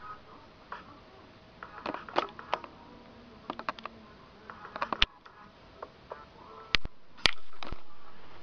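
Handling noise from a handheld camera: scattered light clicks and taps, with a few sharper knocks in the second half.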